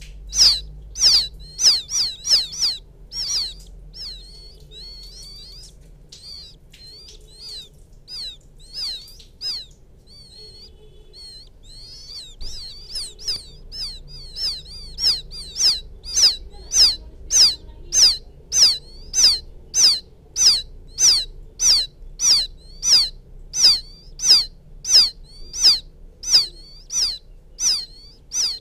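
Quail chicks calling for the hen: a long series of short, high peeps, each rising and then falling, about two a second. The peeps are sparser and quieter for a stretch a few seconds in, then steady and louder in the second half.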